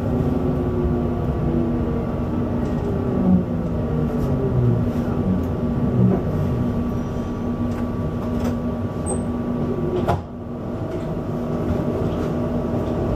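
Duewag B80D light-rail car running, heard from on board: the electric traction drive's whine falls in pitch over the first few seconds as the car slows. About ten seconds in there is a click and a brief dip in the sound, after which a steady higher whine carries on.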